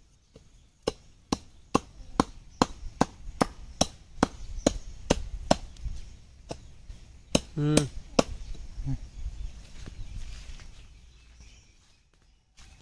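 Repeated chopping strokes, a little over two a second and about fifteen in all, stopping around eight seconds in. A short voiced cry breaks in among the last strokes.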